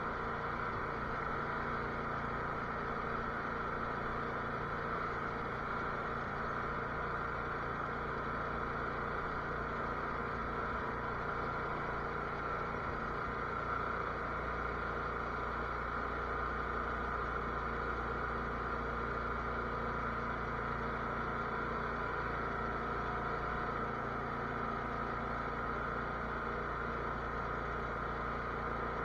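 Cub Cadet garden tractor engine running at a steady speed, with no revving.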